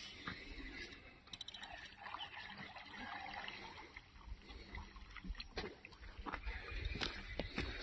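A snagged fish on the line thrashing and splashing at the water's surface close to the bank; the angler thinks it is hooked in the tail.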